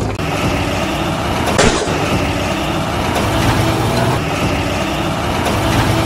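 Truck engine running steadily, with a short rushing noise about a second and a half in.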